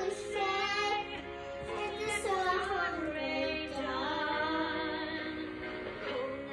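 A song with a woman singing, long held notes with vibrato over a musical backing; a young girl sings along part of the time.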